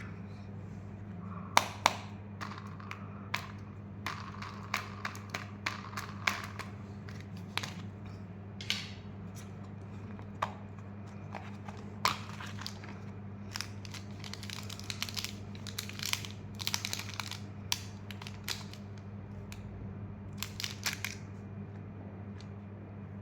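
Plastic candy wrappers and packaging being handled, crinkled and torn open, with scattered sharp clicks and snaps, busier about halfway through. A steady low electrical hum runs underneath.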